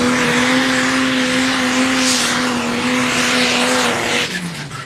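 Pro Stock turbo-diesel pulling tractor running flat out with a steady, high engine note. The sound falls away sharply about four seconds in.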